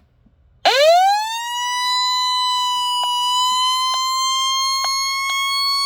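Weather alert radio's built-in siren going off in a test: about a second in, a loud tone sweeps up quickly and then holds steady, with a few faint ticks over it.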